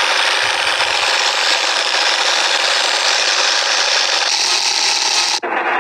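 Loud, steady rasping noise of an old film-projector effect at the opening of a music video, cutting off suddenly about five seconds in.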